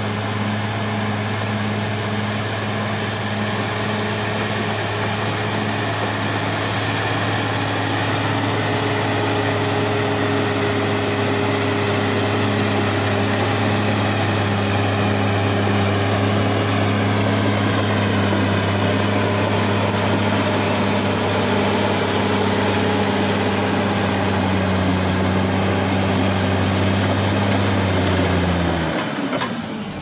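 Caterpillar D6R XL crawler bulldozer's diesel engine running steadily under load as the dozer pushes soil. Near the end the sound dips and breaks off briefly.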